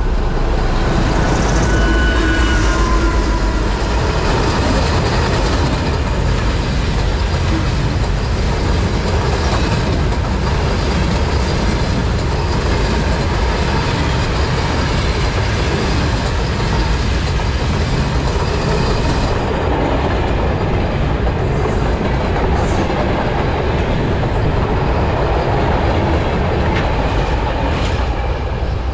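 Diesel-hauled works train, led by a class 55 and an ex-DB class 233 Ludmilla diesel locomotive, running past on the rails. Its engines and wheels make a steady, loud rumble.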